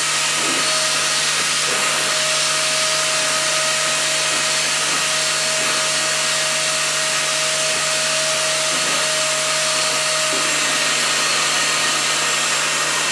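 Ultenic P30 pet-grooming vacuum running steadily with its suction on, a constant whine over a rush of air as its hose brush is worked through a dog's coat.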